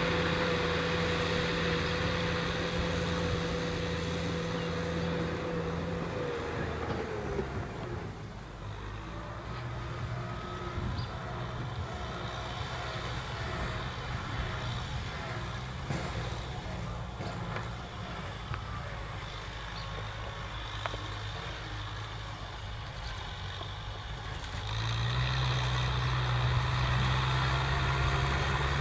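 Kubota M6040SU tractor's diesel engine running steadily under load while pulling a disc plow through dry field stubble. A steady high tone over the engine slides down and stops after about seven seconds, the engine grows quieter, and it gets louder again near the end as the tractor comes closer.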